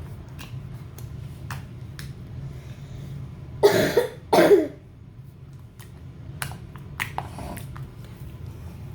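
Thick, glossy slime being stretched and pressed by hand, giving small sharp pops at irregular intervals. Two short, loud bursts from a person, like coughs, break in about four seconds in.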